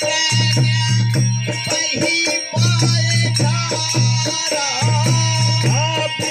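Harmonium playing a folk devotional tune, with a rattling hand percussion keeping a steady rhythm.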